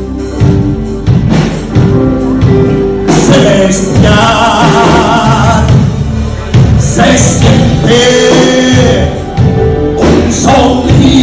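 Live gospel worship music: a band playing with a steady beat, with singing joining about three seconds in.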